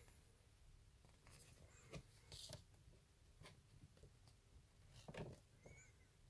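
Near silence with a few faint, brief rustles of a glossy paper magazine being handled, about two seconds in and again about five seconds in.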